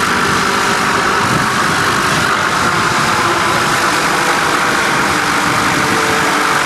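Light aircraft's piston engine running steadily at low power, a loud, even drone with no change.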